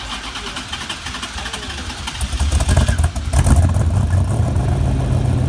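A car engine running; its low rumble grows louder about halfway through and settles into a steady hum.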